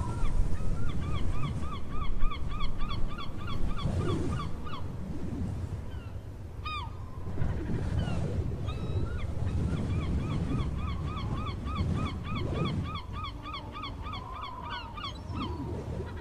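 A bird calling in long runs of short, quick, rising-and-falling notes, about five a second, in two bouts. A low background rumble runs underneath.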